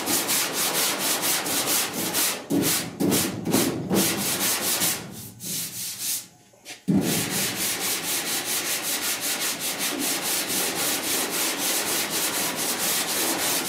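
Hand block sanding of body filler on a truck's steel cab panel with 80-grit paper, taking out the coarser 36-grit scratches: rapid, even back-and-forth strokes. There is a brief pause about six seconds in, then the sanding starts again abruptly.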